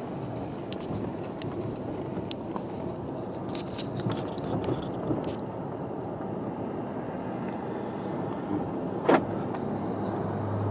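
Car cabin noise while driving on a rough, patched asphalt road: a steady hum of tyres and engine with small scattered clicks and rattles, and one sharper knock about nine seconds in.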